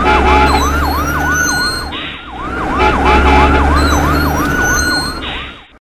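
Siren sound effect: a fast yelp that swoops up and down in pitch about four times a second over a low steady hum, looping every couple of seconds. It cuts off suddenly near the end.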